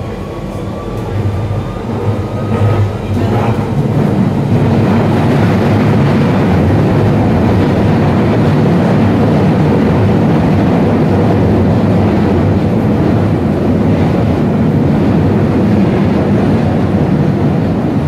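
London Underground 1992-stock tube train running in tunnel, heard from inside the carriage. The rumble of wheels on rail grows louder over the first four seconds, then stays loud and steady.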